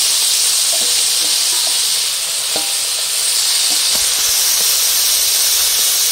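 Small fish sizzling as they fry in hot oil in a kadai: a steady hiss, with a few light clicks as a spatula turns them.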